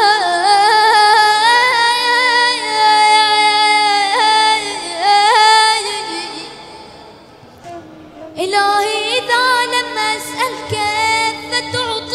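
A boy's voice chanting an Arabic supplication unaccompanied, in long held notes with ornamented slides. The phrase fades out about seven seconds in, and after a short pause a new phrase begins.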